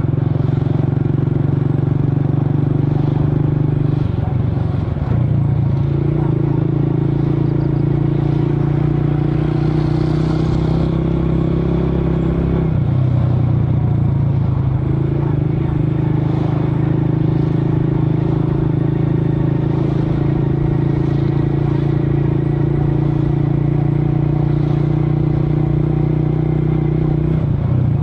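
Motor scooter engine running steadily, its pitch stepping up and down a few times as the engine speed changes.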